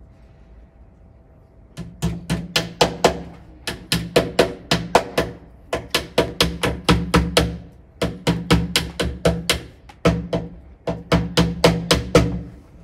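Hammer driving tacks through a sash cord into the timber side of a window sash: quick runs of sharp knocks, about five a second, in groups of six to eight with short pauses between.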